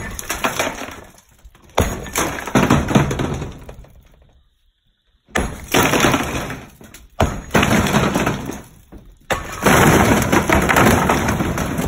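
Heavy hammer blows knocking apart a brick chimney: five sharp hits, roughly two seconds apart, each followed by a second or two of breaking brick and mortar crashing and clattering.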